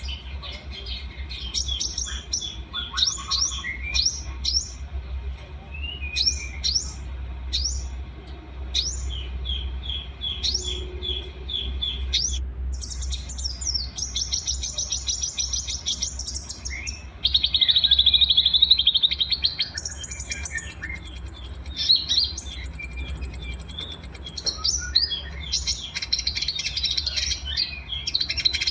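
Songs of several small songbirds mixed together, a masteran tutor recording for training caged songbirds: rapid high chirps, quick pitch sweeps and trills, with the loudest, densest trill about two-thirds of the way through. A steady low hum runs underneath.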